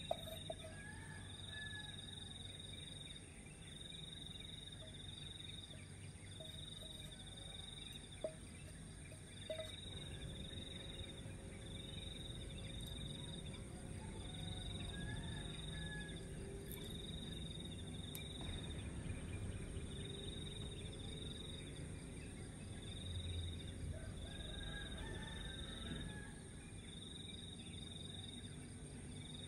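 Outdoor insect ambience: insects chirping in a short high pulse about once a second over a continuous high-pitched insect drone, with a few faint bird chirps.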